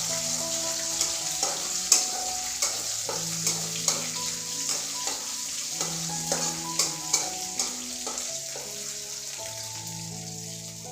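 Garlic, ginger and green chillies sizzling in hot oil in a kadhai as they are stirred, with sharp irregular taps and scrapes of the spatula against the pan.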